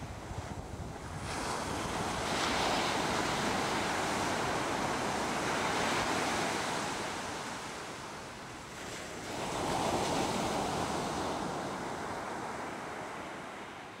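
Sea surf and wind: a steady rushing of waves that swells about a second in, eases off, swells again around ten seconds in, then fades.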